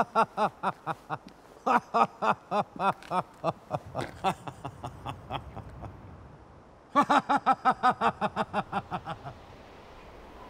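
A man laughing in rhythmic ha-ha-ha bursts, in three long bouts; the last bout starts about seven seconds in and trails off.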